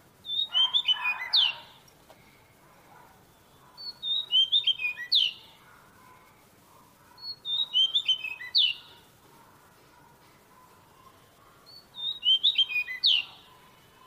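Caged magpie-robin singing the same short phrase four times, about every three and a half seconds: a quick run of clear high notes ending in a sharp sweep.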